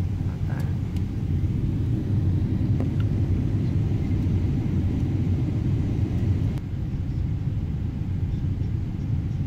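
Steady low rumble of a jet airliner in flight, heard from inside the passenger cabin: engine and airflow noise.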